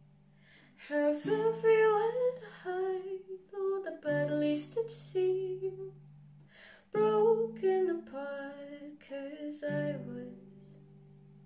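A woman's voice carrying a slow melody without clear words over a ukulele, its chords strummed about every three seconds and left to ring, starting about a second in.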